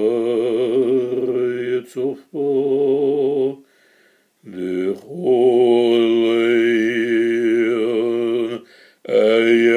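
A man's solo voice chanting a liturgical prayer a cappella, holding long notes with a wavering vibrato, in several phrases broken by short breaths.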